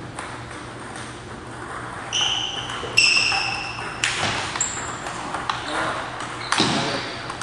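Table tennis rally: the ball clicking off the rackets and the table, with two short squeaks of shoes on the hardwood gym floor about two and three seconds in, and a louder thump near the end.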